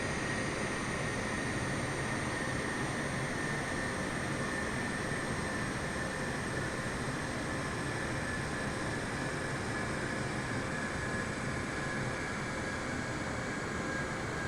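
Jet airliner engines running steadily during the takeoff and climb, a dense rushing noise with a high whine that drifts slowly lower in pitch.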